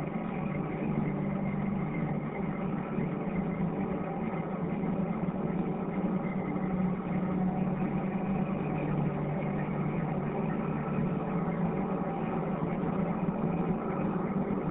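A steady, low droning hum that does not change.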